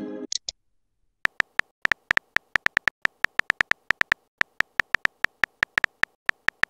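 Phone-keyboard typing clicks from a texting-story app, quick taps at about four to five a second, starting about a second in. At the very start a short electronic chime fades out.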